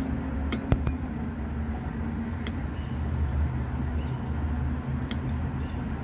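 Spoon and fork clinking against a plate while eating: a quick cluster of sharp clicks under a second in, then single clicks near the middle and about five seconds in, over a steady low hum.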